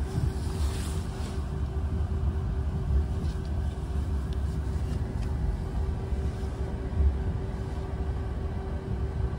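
Passenger train running, heard from inside the carriage as it moves off along the platform: a steady low rumble with a constant hum, and a short hiss about a second in.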